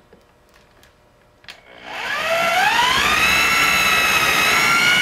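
Corded electric drill starting up after a quiet second and a half, its motor whine rising in pitch and then running steady as the 11/32-inch bit cuts through a thin base plate.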